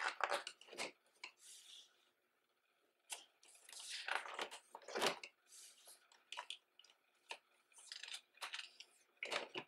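Pages of a desk calendar being flipped and handled: short bursts of paper rustling and light taps in several clusters, with brief pauses between them.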